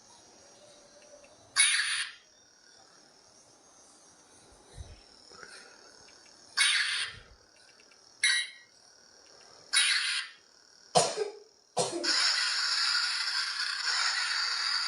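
Electronic sound effects from a toy lightsaber's speaker: five short hissing bursts a second or more apart, then a continuous buzzing hum that starts a little before the end.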